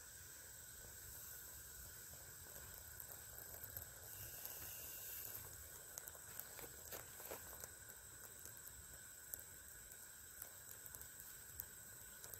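Faint small tinder fire of birch bark and sassafras twigs, with a few soft crackles and snaps as twigs are laid on the flame, over a steady hiss.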